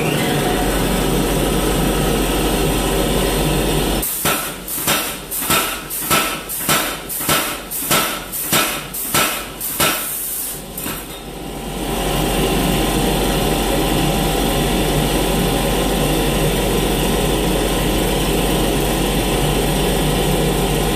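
Big Blu 110 air-powered hammer striking a hot steel bar about a dozen times, about two blows a second, flattening it into a small disc for a bell clapper. Before and after the blows a steady roaring shop noise runs on.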